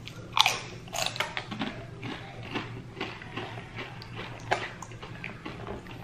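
A crisp tortilla chip bitten with a sharp crunch about half a second in, then chewed in a run of smaller crunches. Later come fingers picking through a pile of tortilla chips, with another sharp crack partway through.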